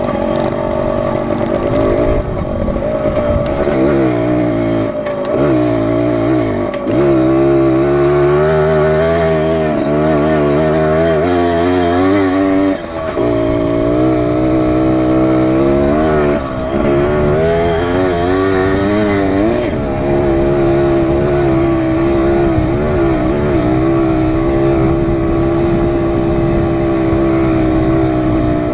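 Dirt bike engine running while the bike is ridden along a trail, its pitch rising and falling with the throttle. It drops off briefly twice midway.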